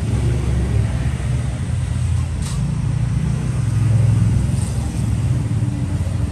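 Low steady rumble of motor traffic, swelling about four seconds in, with two faint clicks.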